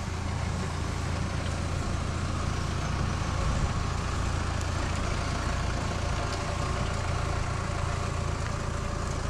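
A 4x4's engine running steadily at low revs on an off-road slope, with no revving or bangs.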